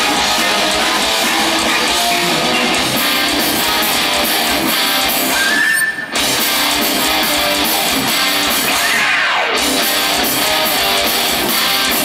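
Live heavy metal band playing, with electric guitars and drums. There is a brief break in the music about halfway through.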